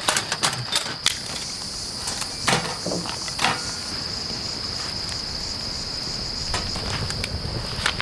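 Insects chirring in one steady high-pitched drone, with a few sharp knocks and clatters of camp gear being handled in the first few seconds.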